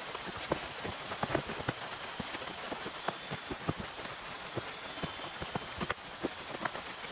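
Rain pattering on a tent: a steady hiss with many separate drops tapping at irregular intervals.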